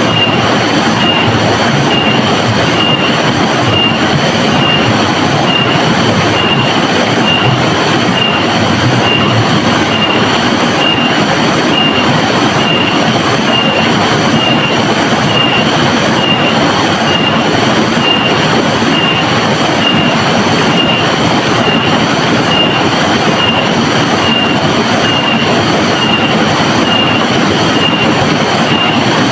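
River water rushing, a loud steady wash of noise, with a faint high tone that pulses evenly about every two-thirds of a second.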